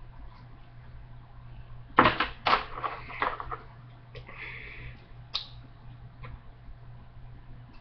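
Plastic LEGO pieces being handled and snapped together: a quick cluster of clicks and knocks about two seconds in, a short rattle a little later, then a few single clicks.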